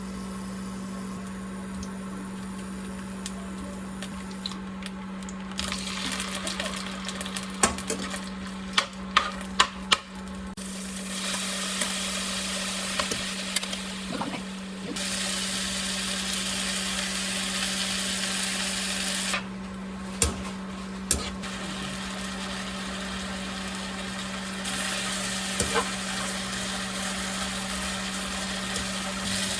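Food frying and sizzling in a pan, the hiss swelling and easing in long stretches. Several sharp clinks of a utensil against the pan come in a cluster near the start and a couple more later, over a steady low hum.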